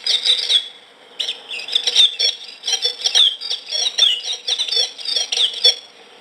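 Recorded birdsong played back from a sound-effect box through external computer speakers: rapid high chirps and trills, with a short pause about a second in, over a faint steady hum.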